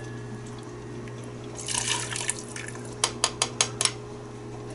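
Broth poured from a small cup through a mesh strainer into a stockpot, a splashing pour about a second and a half in, then a quick run of about five light taps near the end, over a steady low hum.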